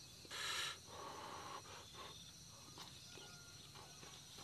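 Faint, steady chirping of crickets, with a brief soft rustle about half a second in.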